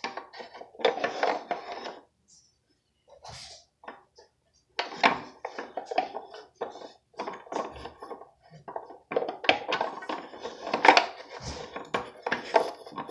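Wooden beads of a toddler activity cube's bead maze clacking against each other and the wire as they are slid along. A short burst of clacks first, a near-quiet pause of about three seconds, then fast, dense clacking to the end.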